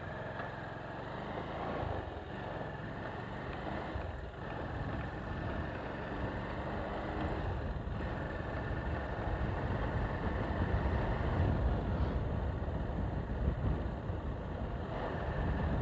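Motorcycle engine running as the bike pulls away and rides along a road, growing louder over the first several seconds, with brief dips in the engine sound about four, eight and twelve seconds in.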